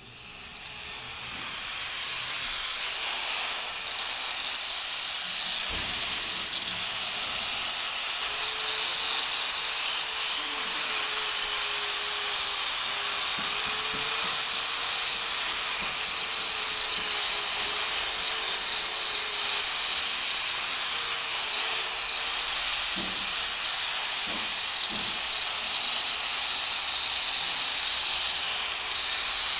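Handheld angle grinder with a sanding disc running against a cast-metal sculpture: a steady abrasive hiss over a high motor whine, coming up over the first two seconds, with a lower tone that wavers as the disc is pressed. A few faint knocks sound in the middle and near the end.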